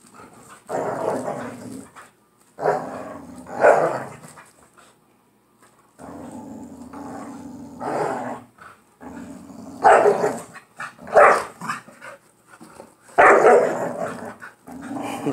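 Two pit bulls growling low and steadily through a tug-of-war over a stuffed toy, breaking again and again into short, loud barks and snarls, with a brief pause about a third of the way in. It is rough play, not a real fight.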